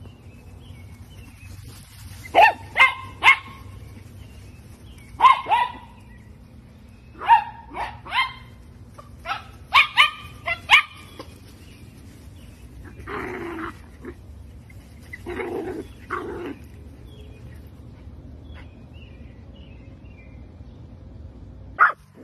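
A miniature dachshund barking: high, sharp barks in quick bursts of two or three, repeated several times through the first half.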